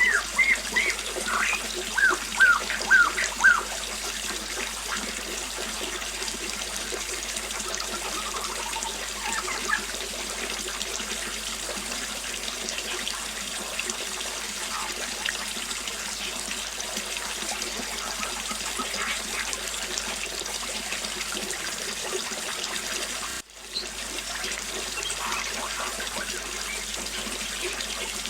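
Small waterfall trickling and splashing steadily, with birds chirping over it. A quick run of short, loud chirps comes in the first few seconds, then only scattered calls, and there is a brief drop-out in the sound about 23 seconds in.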